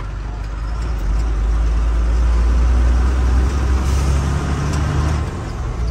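Truck engine running under way with road noise, a steady low rumble that grows louder about a second in.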